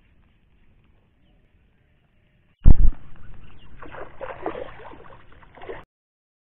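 Handling noise from casting a fishing rod: a sudden loud thump about two and a half seconds in, then about three seconds of crackling, rustling noise that cuts off suddenly.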